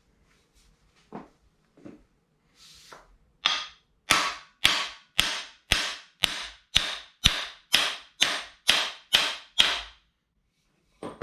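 Hammer blows on the driver of a cam bearing removal tool, driving a camshaft bearing out of a 350 small-block Chevy block. After a few light metal clinks come about thirteen sharp, ringing strikes at a steady two a second, which stop near the end.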